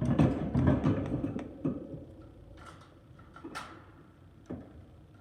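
Bird cage fittings being handled and moved: a dense rustling clatter for about the first two seconds, then scattered light clicks and taps.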